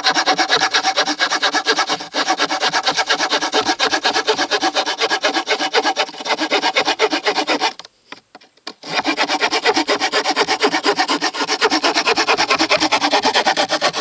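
Boker Tech Tool Carbon 4 multitool's folding saw blade cutting through a wooden board by hand, in rapid, even back-and-forth strokes. The sawing pauses for about a second midway and stops near the end.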